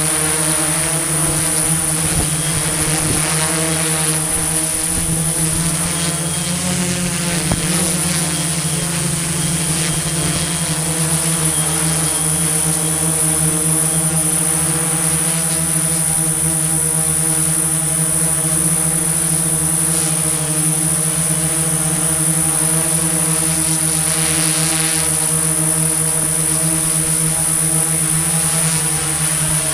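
Construction machinery engine running steadily at a constant speed: an even, deep hum with a thin, high steady whine above it.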